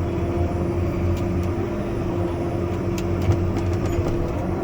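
Tractor engine running steadily with a constant hum while the tractor backs up, with a few light clicks about three seconds in.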